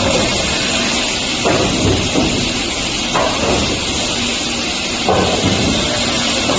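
Multi-head wood cut-off saw machine running with a steady loud noise, its circular blades surging louder several times as they cut through wooden boards.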